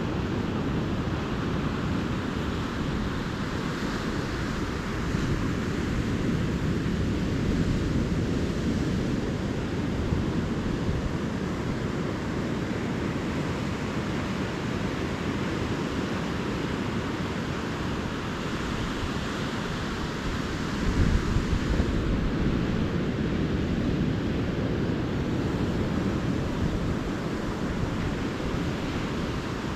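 Ocean surf washing onto a beach at night, a steady rush of waves that swells and eases every several seconds. Wind buffets the microphone with a low rumble, briefly louder about two-thirds of the way through.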